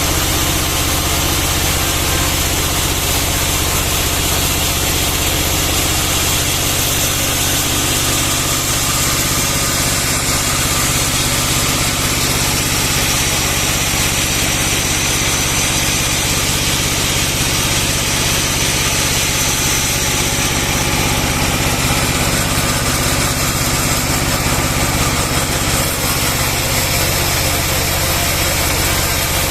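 Band sawmill machinery running steadily, a constant low engine-like hum with a hiss over it.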